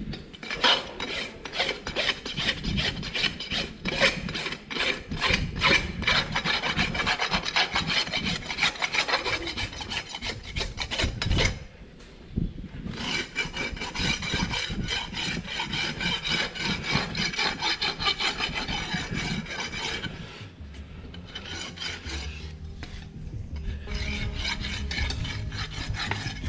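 Farrier's rasp worked in quick repeated scraping strokes. The strokes stop briefly about halfway, start again, and grow fainter near the end.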